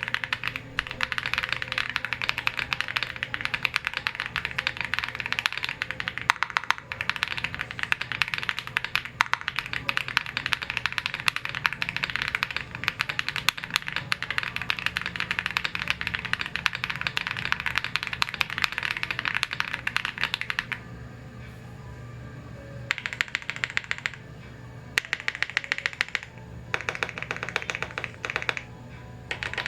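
Tiger80 Lite mechanical keyboard with lubed Akko Cream Blue V3 tactile switches and PBT keycaps, typed on fast and without a break; about 21 seconds in, the typing turns to short bursts with pauses between them.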